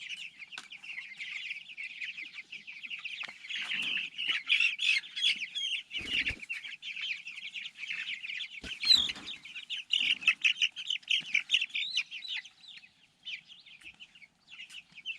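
A flock of young Cornish Cross meat chicks peeping continuously in a dense, high-pitched chorus. A few dull knocks or rustles come through about six and nine seconds in.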